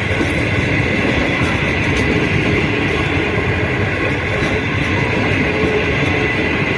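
Passenger train running on the rails, a steady, loud rumble and rolling noise from its wheels and cars.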